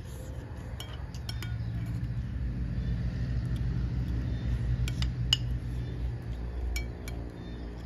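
Metal spoon clinking and scraping against a ceramic bowl while eating rice, a few sharp clinks scattered through, over a steady low rumble that swells in the middle.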